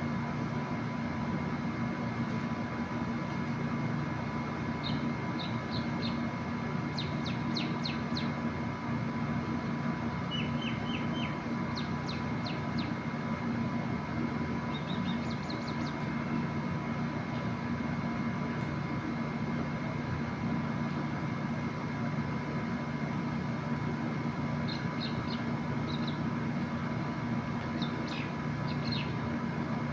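Steady mechanical hum with a few fixed tones, with short runs of high bird chirps now and then, mostly in the first half and again near the end.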